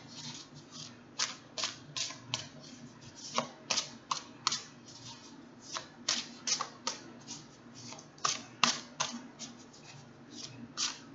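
A deck of tarot cards being shuffled by hand: an irregular string of short clicks and slaps of card on card, a few a second.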